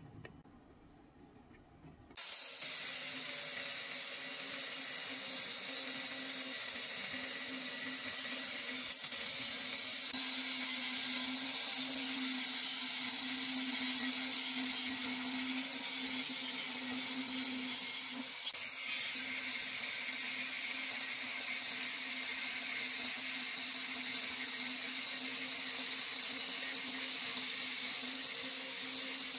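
Angle grinder with a thin cut-off disc cutting through a galvanized steel square tube: a steady, loud grinding hiss over a low motor hum, starting suddenly about two seconds in.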